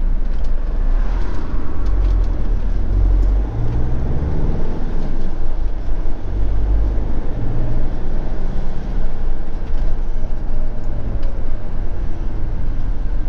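Motorhome driving along a road: a steady rumble of engine and road noise, with the engine note rising about four seconds in as it picks up speed.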